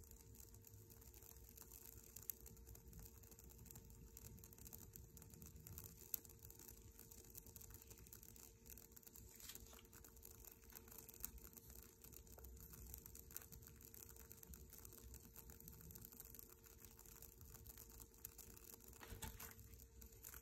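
Near silence: faint scattered ticks and crackles from a steel bolt heated red-hot and sparking in an induction heater's work coil, over a steady faint hum.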